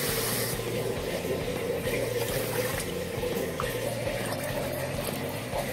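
Water poured from a measuring cup into a wide non-stick kadhai over sugar, splashing as it lands, loudest right at the start, with further smaller pours as more cupfuls of water go in for a sugar syrup.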